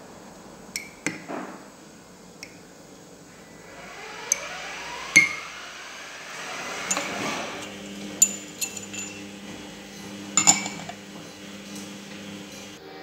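A metal teaspoon and dishware clinking against a glass mug of water: about a dozen sharp, separate clinks, the loudest about five seconds in with a brief ring.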